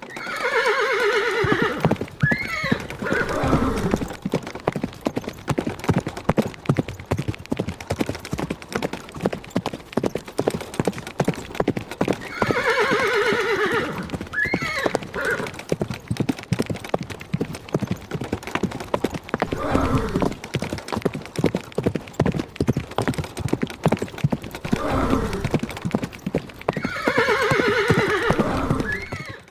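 Horses galloping, with a rapid, unbroken drumming of hoofbeats. Stallions whinny over it: near the start, about 13 seconds in, and again near the end, each call falling in pitch.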